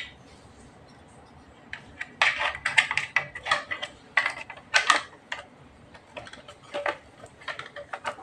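Hard plastic parts of a Tenda O1 outdoor access point and its snap-on mounting bracket clicking and knocking together as they are handled. The irregular clatter starts about two seconds in and is busiest in the middle.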